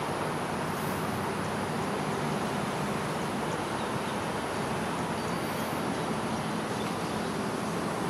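Steady outdoor city ambience: an even, constant hiss of distant traffic.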